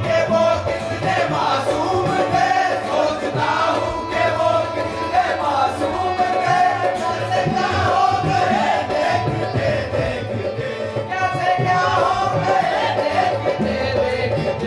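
Live qawwali: a male voice sings long, ornamented, wavering lines over a harmonium's held notes and a steady run of tabla strokes, with chorus voices behind.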